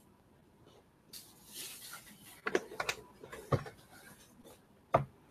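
Scratchy strokes of a paintbrush on watercolour paper as grass is painted in, with a few sharp knocks in the second half, the loudest near the end.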